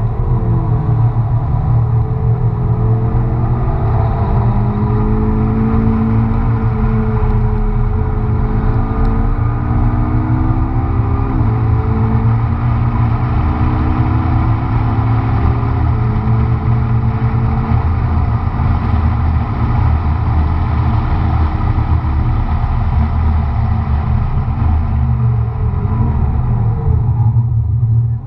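McLaren MP4-12C's twin-turbo V8 heard from inside the cabin at track speed, its note climbing and dropping sharply at two upshifts midway, over a constant low rumble of road and wind noise. Near the end the engine note fades back into the rumble.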